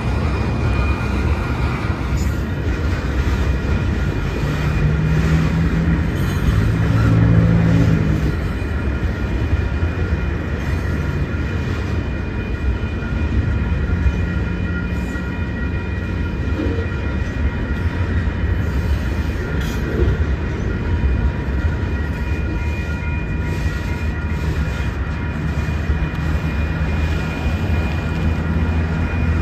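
Union Pacific freight train's boxcars rolling past: a steady rumble of steel wheels on rail with clicks from the wheels, faint steady high tones above it, and a brief swell in loudness about seven seconds in.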